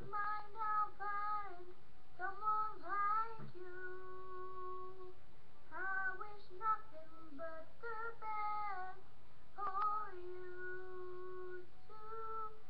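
A boy singing a tune without accompaniment, in short phrases with several long held notes.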